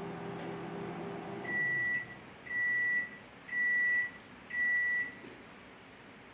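Microwave oven running with a low hum that stops about one and a half seconds in, followed by four beeps about a second apart: the end-of-cycle signal that the oatmeal has finished cooking.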